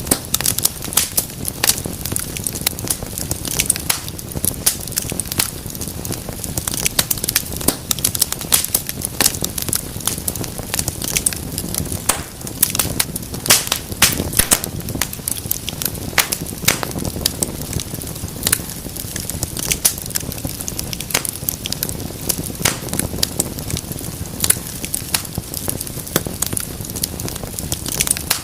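Wood fire burning in a fireplace: a steady low rumble of flame under a dense, irregular crackle of sharp pops and snaps.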